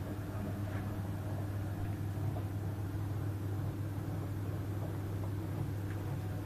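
Potterton Netaheat 16-22 gas boiler running with a steady low hum and the rumbling noise of kettling, with a few faint ticks. Kettling is typical of water boiling locally on a scaled-up heat exchanger.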